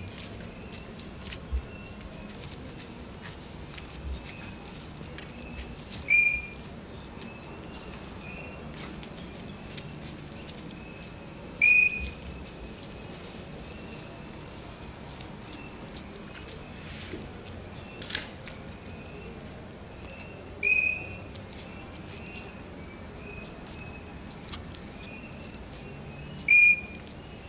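Crickets trilling steadily at a high pitch. Four times, roughly every five seconds, a louder short high chirp cuts through, with fainter chirps between.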